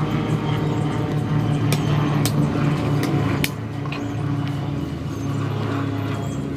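An engine running steadily, with a few sharp clicks or knocks over it in the first half; the engine drops a little in loudness about halfway through.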